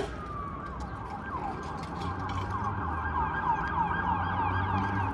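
Emergency vehicle siren: a long tone slides down in pitch, then about a second in it switches to a fast yelp of roughly four falling sweeps a second. Low traffic rumble runs underneath.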